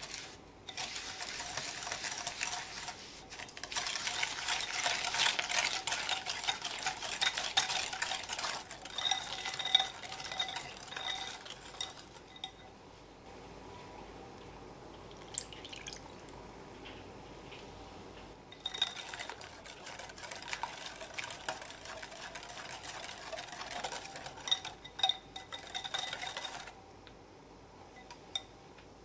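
Metal balloon whisk beating thick cream cheese and sugar in a glass mixing bowl, its wires clicking and scraping rapidly against the glass. The whisking stops for several seconds about midway, then starts again and stops near the end.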